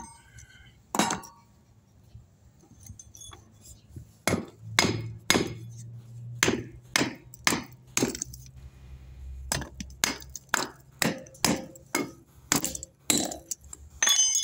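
Hammer blows on the broken concrete of a storm-drain box, a regular series of about two sharp strikes a second that begins a few seconds in and pauses briefly near the middle.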